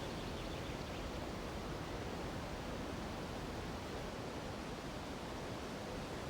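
Steady, even rush of a nearby mountain river, with wind moving through the treetops.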